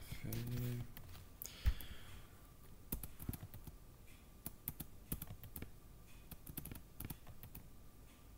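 Computer keyboard keys clicking in irregular keystrokes, with a short low hum of a voice near the start and one louder knock about two seconds in.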